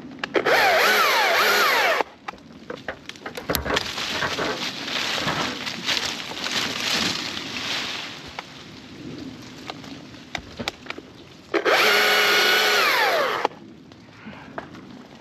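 Chainsaw running at full throttle in two short bursts, one near the start and one about twelve seconds in, its pitch dropping as the chain bites into the wood. Between the bursts come a few seconds of rustling with many sharp cracks.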